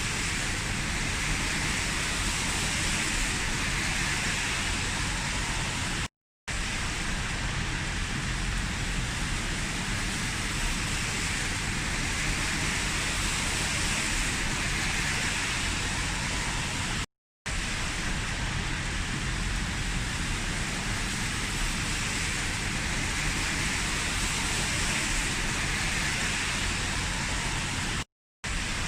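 Heavy rain falling in a steady, even downpour. It cuts out briefly three times, about a third of the way in, past halfway and near the end.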